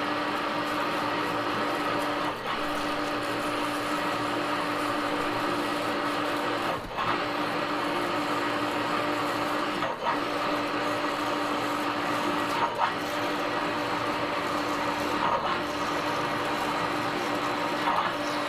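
Metal lathe drilling a bore in a spinning barn-door roller with a large twist drill: a steady machining hum at one held pitch, broken by short dips every few seconds.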